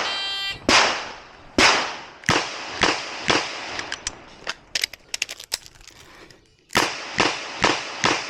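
Ruger GP100 Match Champion revolver firing .38 Special in quick aimed shots about half a second apart, then a pause with a run of lighter clicks, then four more quick shots. A short high electronic beep sounds at the very start.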